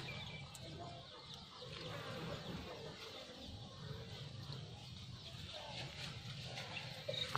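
Quiet outdoor background with a steady low rumble and a few faint, short animal calls, like distant hens clucking.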